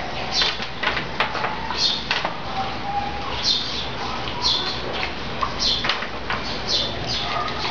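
A spitz mix dog chewing a raw chicken carcass, the bones crunching in short bursts about once a second, with small clicks between.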